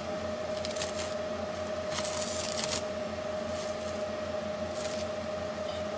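Plastic wrapping crinkling in several short bursts as wrapped parts are handled, over a steady high-pitched hum from shop equipment.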